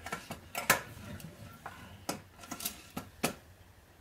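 Light, irregular metallic clicks as the piston and connecting rod of a Polaris 250 two-stroke ATV engine are worked up and down by hand. The clicks come from play that shouldn't be there, either the connecting rod knocking on the crank pin or the wrist pin tapping; the owner suspects a worn wrist pin.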